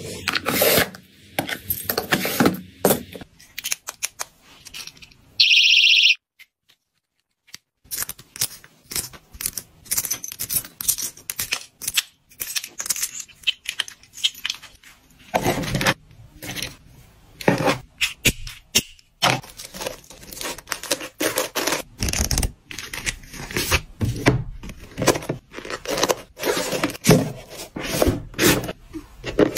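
Close-up handling of small metal keyring hardware and packaging: many short clicks, taps and jingles as split rings and lobster clasps are fastened onto a leather card wallet and tassel keychain, then a cardboard box is handled and closed. A brief high tone sounds about five seconds in, followed by a moment of silence.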